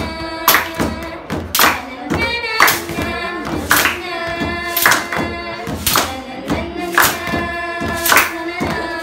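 A group of young teenagers singing a song together, keeping the beat with hand claps about once a second.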